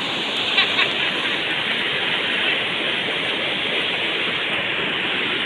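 Steady rush of floodwater pouring over an overflowing weir, with a couple of short clicks just under a second in.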